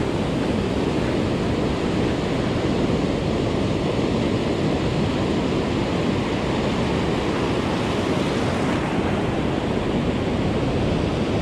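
Ocean surf: small waves breaking and washing up over shallow sand, a steady rushing wash.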